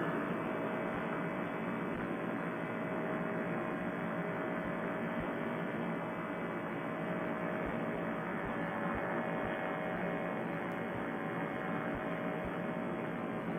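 Paramotor trike's engine and propeller running steadily in low flight, a constant droning hum with no change in pitch.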